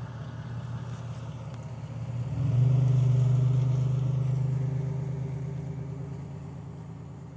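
Truck engine running close by, then rising sharply about two and a half seconds in as the truck pulls away. The low engine hum then fades steadily as it drives off.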